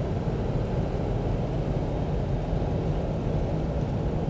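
The 4-litre 12H-T turbo diesel six of a 1988 Toyota Land Cruiser HJ61, heard from inside the cab, running steadily at cruising speed with road and tyre noise.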